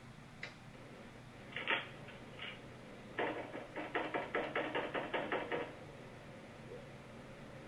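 Knocking on a door: a few single knocks, then a fast run of about a dozen knocks, roughly five a second, lasting a little over two seconds.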